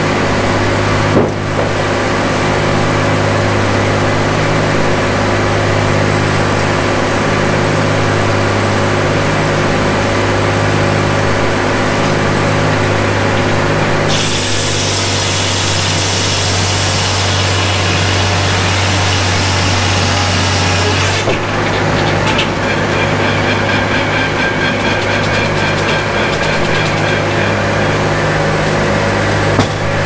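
Circular sawmill running, its power unit droning steadily throughout. From about halfway in, for some seven seconds, the large circular blade saws through the log with a loud, high rushing noise, then cuts off back to the drone. A single knock comes about a second in.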